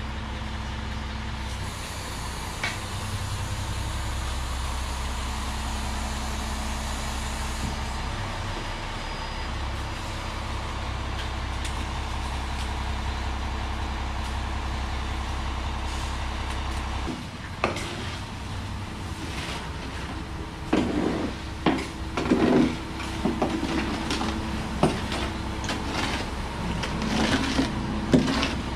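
Concrete mixer truck running steadily as flowable fill slides down its chute into a wheelbarrow; the engine sound stops abruptly a little past halfway. After that, irregular scraping and knocks of a long-handled hoe pushing wet fill along the metal chute.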